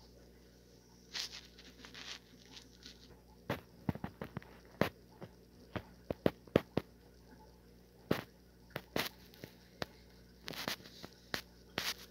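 Paper and cardboard packaging being handled and opened by hand: irregular crackles, rustles and sharp clicks, more frequent from a few seconds in.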